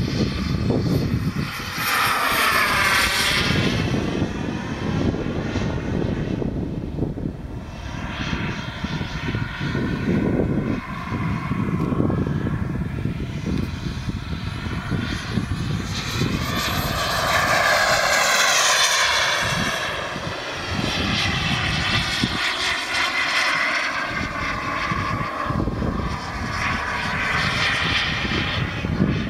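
JetCat Titan turbine engine of a radio-controlled model jet in flight, a steady loud whine and rush that swells and sweeps down and up in pitch as the jet makes passes, about three times.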